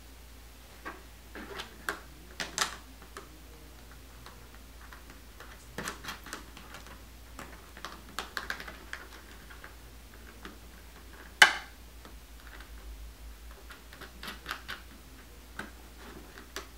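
Small plastic parts and bolts being handled during assembly: scattered clicks, taps and rustles, with one sharp, louder click about eleven seconds in.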